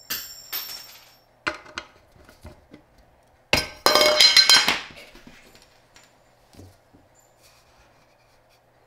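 Metal clinks and taps as the clip and lid are pried off a metal can of two-part sealer with a small metal tool. About three and a half seconds in comes a louder burst of ringing metal-on-metal clinking lasting about a second.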